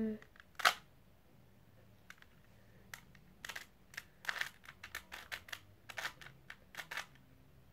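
Plastic 3x3 Rubik's cube being twisted by hand: quick clicking turns of its layers. There is a single sharp click about a second in, then a run of rapid clicks from the middle until near the end.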